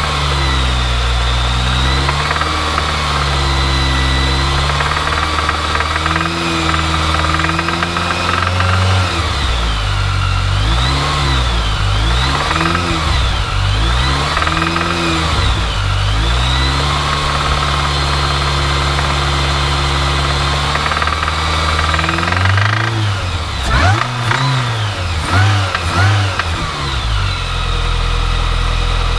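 Mini Cooper S R53's supercharged 1.6-litre four-cylinder engine revved up and down repeatedly, with several quick sharp blips near the end before it settles back to idle. It knocks and rattles from about 2,000 rpm, which the owner thinks is worn big-end bearings.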